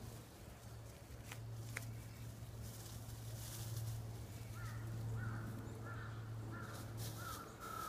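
A bird calling outdoors: a run of six short, repeated calls in the second half, over a steady low hum and a few faint rustles and clicks.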